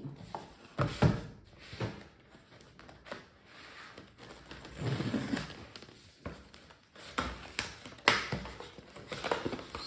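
Scattered taps and thunks of a GoPro camera box and its packaging being handled and opened, with sharp knocks about a second in and again about eight seconds in.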